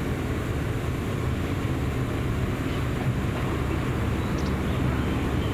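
GV-E400 series diesel-electric railcar's diesel engine running with a steady low drone.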